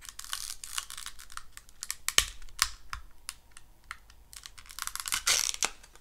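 Clear plastic CPU packaging tray being handled and prised open: a quick run of sharp plastic clicks and crackles, with a sharp snap about two seconds in and a louder crackling stretch about five seconds in.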